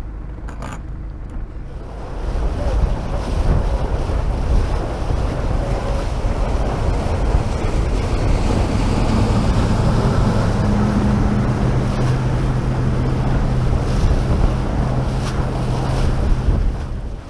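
Sailboat under way with its engine humming low and steady, under heavy wind rushing on the microphone and water noise that come up loud about two seconds in. The engine hum grows stronger about halfway through, and the noise drops away just before the end.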